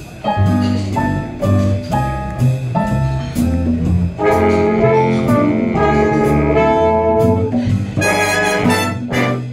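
Big band playing a jazz tune live: the saxophone section and rhythm section open it, and the trumpets and trombones come in about four seconds in, filling out the sound.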